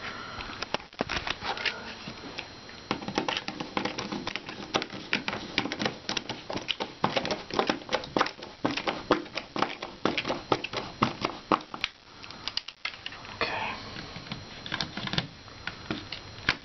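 Rapid, irregular small clicks and taps of hands working a plastic thermostat, most likely fitting it onto its wall plate, busiest through the middle stretch.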